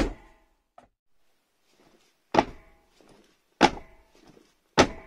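A man in boots jumping on a floor of 50 mm wooden boards laid on joists: four heavy landing thuds, the first two about two seconds apart, then roughly every second and a quarter, each with a short ringing decay.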